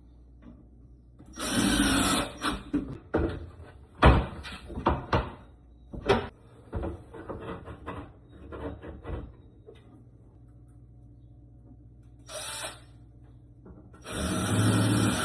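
Installation work on a built-in refrigerator and its kitchen cabinet: short bursts of scraping and a run of knocks and clicks, with a pause before two more bursts of scraping near the end.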